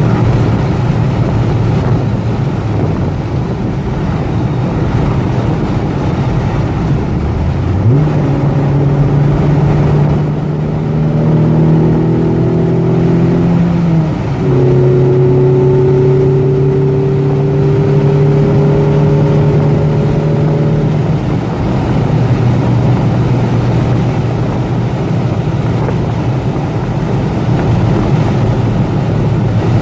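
Toyota MR2's mid-mounted engine and tyre and road noise, heard from inside the cabin while driving. About eight seconds in the engine note rises as it pulls. It drops in pitch at a gear change about fourteen seconds in, climbs slowly again, and sinks back under the road noise a little after twenty seconds.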